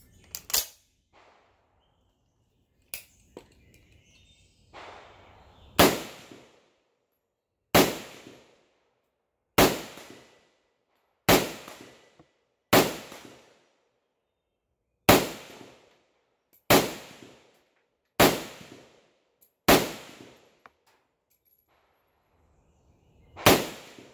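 SKS semi-automatic rifle (7.62×39 mm) firing ten single shots, spaced about one and a half to two seconds apart with a longer pause before the last, each report trailing off in a short echo. A sharp metallic clack comes at the very start as the action is worked.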